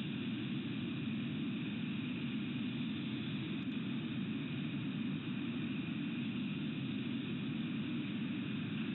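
Steady, unchanging background noise: a low rumble under a higher hiss, with no bird calls or other events.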